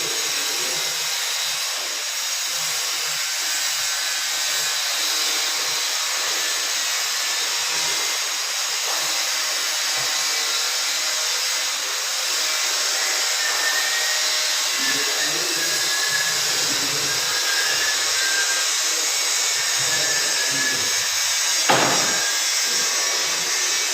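A small motorised tool running steadily with a hissing whir, and one sharp knock about 22 seconds in.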